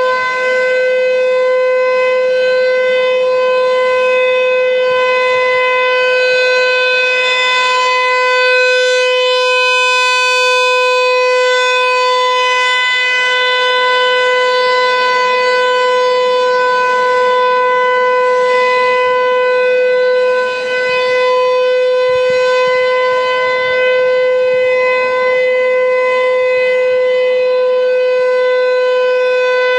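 American Signal T-135 electromechanical outdoor warning siren sounding its steady alert tone for a scheduled test. It holds one steady pitch with a strong stack of overtones, loud and unbroken, with only slight dips in loudness.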